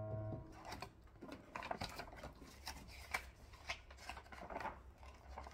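A held piano chord ends about half a second in, then irregular paper rustling as sheets of piano music are leafed through on the music stand.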